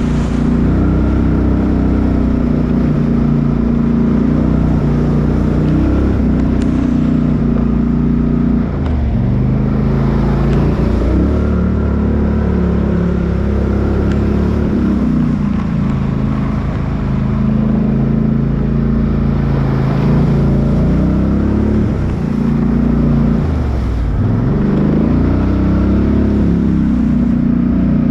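Off-road 4x4's engine running continuously, its speed dropping and picking up again several times as the throttle is worked.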